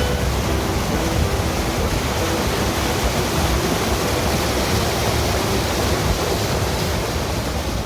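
Waterfall rushing: a steady, loud noise of falling water that does not change.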